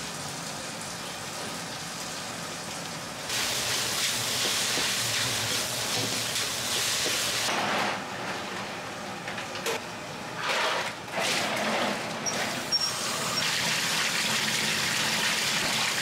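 Water noise in an udon kitchen: udon noodles boiling in a noodle cooker and being rinsed by hand in a net under a running tap, with water gushing and splashing. The water grows louder about three seconds in, dips around the middle with a few short surges, and runs steadily again near the end.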